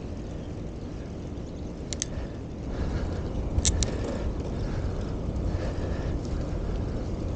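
Wind rumbling on the camera microphone and tyre noise from a bicycle in motion, growing louder about three seconds in, with two sharp double clicks along the way.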